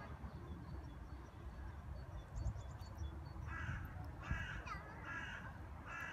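A crow cawing, about four harsh calls in quick succession starting about halfway in.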